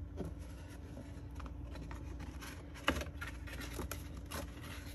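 Cardstock rustling and scraping as a glued paper piece is slid into a cardstock box and pressed into place by hand, with one sharp tap just before three seconds in.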